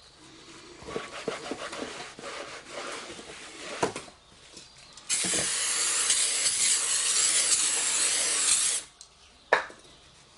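A rag rubbing over a new steel brake disc, then an aerosol can of cleaner sprayed onto the disc in one loud, steady hiss of about three and a half seconds, starting about halfway through; a single sharp click follows near the end.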